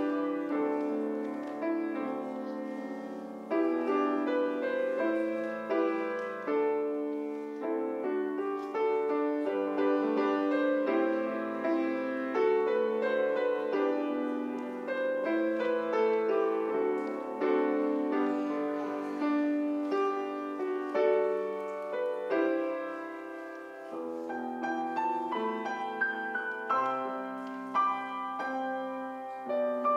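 Grand piano played solo, a steady stream of chords and melody notes ringing into one another in the church.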